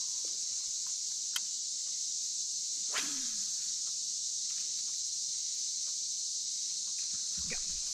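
Steady, high-pitched chorus of insects from the wooded shore, with a few short clicks over it; the strongest comes about three seconds in and drops quickly in pitch.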